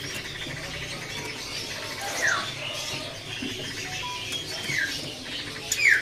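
Many caged songbirds chirping together, with a few short, clear whistles that fall in pitch and one brief steady note standing out over the chatter.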